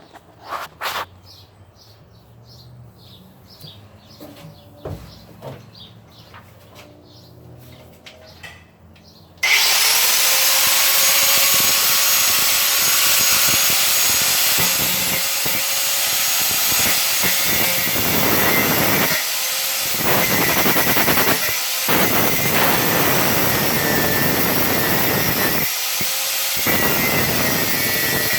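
A few faint clicks and knocks, then about nine seconds in an angle grinder starts suddenly and runs loud and steady with a high whine, grinding out rivets stuck fast in a metal panel. Its sound eases briefly a few times.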